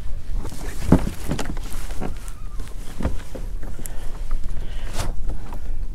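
Wind buffeting the microphone in a steady low rumble, with a few scattered knocks and bumps from rod and gear being handled on a plastic fishing kayak.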